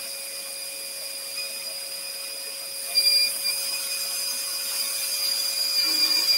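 Axminster Trade AT406SS scroll saw running and cutting wood, with the dust extractor whistling steadily through its hose. The whistle comes from air drawn through holes drilled in the extraction port to ease the suction. The sound grows louder from about three seconds in.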